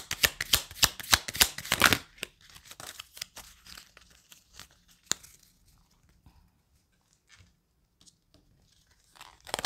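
A deck of tarot cards being shuffled by hand: a quick run of card flicks for about two seconds, then slower, softer handling with one sharp snap, and a brief rustle near the end.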